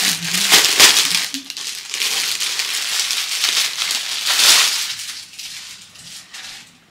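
Clear plastic bag crinkling and rustling as a folded fabric pillow cover is pulled out of it. It is loudest in the first second and again at about four and a half seconds, then dies away near the end.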